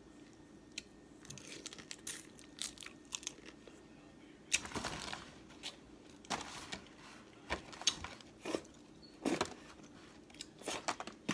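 Close-up eating sounds: seafood shells cracking and crunching with chewing, as irregular sharp clicks and crackles, with several louder crunches through the second half.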